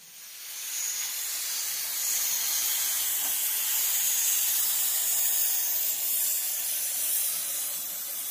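Gas cutting torch hissing steadily as it cuts through steel on an excavator track chain, fading in over the first second.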